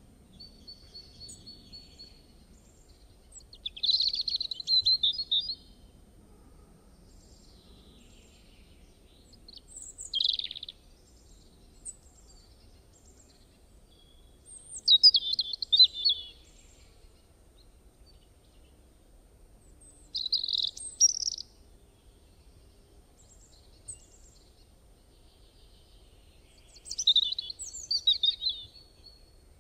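Birdsong: short bursts of high chirping calls about every five or six seconds, over a faint steady background noise.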